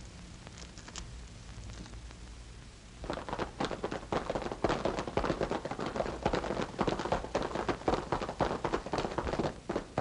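Galloping hoofbeats of several horses, a fast, dense clatter that starts about three seconds in after a short quiet stretch.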